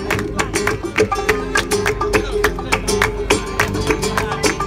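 Live acoustic guitar strummed in a steady, rhythmic Latin-style accompaniment, the chords struck several times a second.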